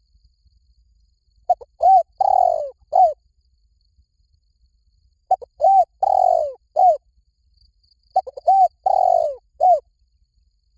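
Spotted dove cooing: three phrases a few seconds apart, each a couple of short coos, then a longer falling coo and a short closing note.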